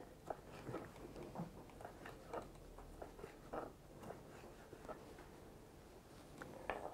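Quiet room with faint, irregular small clicks and soft taps.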